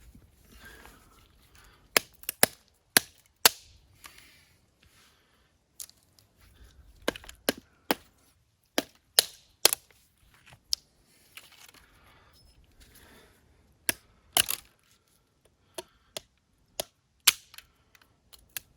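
Firewood cracking: loud, sharp cracks at irregular intervals, sometimes two or three within a second, with gaps of a second or more between groups.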